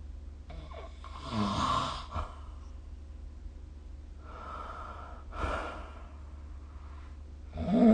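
A sleeping person snoring: noisy breaths about a second in and around five seconds in, then a louder snore with a low pitched buzz starting near the end, over a steady low hum.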